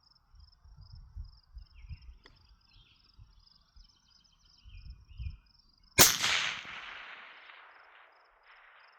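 Barrett MRAD bolt-action rifle firing a single shot about six seconds in. The report rolls away in a long fading tail over a couple of seconds.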